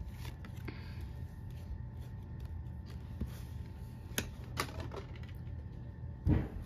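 Baseball trading cards being handled and flipped through by hand: light card-on-card clicks and slides, with a louder tap near the end. A steady low hum runs underneath.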